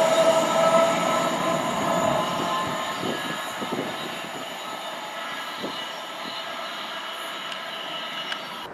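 Freight train of high-sided box wagons rolling away, fading as the last wagons pass. Its wheels are squealing, with several steady high tones over the rumble of the wheels on the rail.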